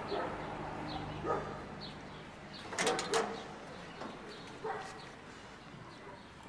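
A dog barking a few times, the loudest barks about three seconds in, with faint short high chirps repeating behind it.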